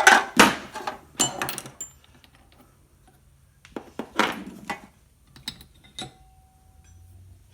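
Steel transfer case parts clinking and knocking against each other as they are handled and slid apart by hand: a few sharp metal clanks, the loudest right at the start, then scattered lighter clicks.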